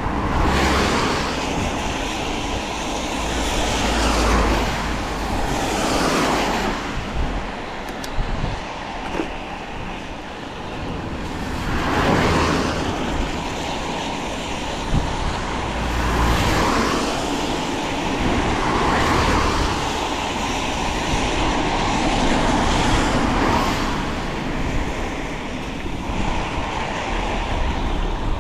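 Steady rush of wind and tyre noise from a mountain bike ride on wet roads, with vehicles swishing past several times.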